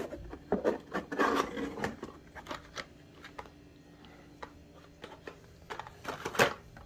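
Cardboard box and plastic blister-carded Hot Wheels packages being handled: rustling with scattered clicks and taps, busiest in the first two seconds, and one sharper tap near the end.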